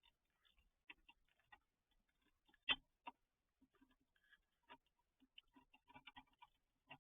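Faint, irregular clicks, taps and crunches of raccoons eating and handling food at a feeder, with one sharper knock nearly three seconds in.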